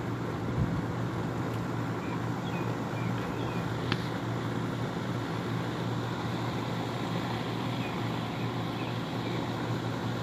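A steady low mechanical hum of a few fixed tones under a constant hiss, with a brief click about four seconds in.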